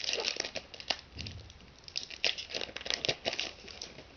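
Foil trading-card pack wrapper crinkling and tearing as it is opened: a run of irregular crackles that thins out and stops shortly before the end.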